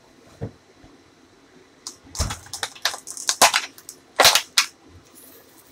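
Thin plastic bag crinkling and crackling in a quick run of sharp bursts as it is handled, loudest about four seconds in.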